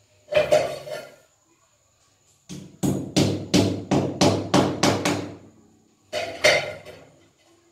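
Hand hammer striking at the masonry wall around the exhaust-fan opening: a blow about half a second in, then a run of about eight quick blows, roughly three a second, each ringing briefly, and one more blow near the end.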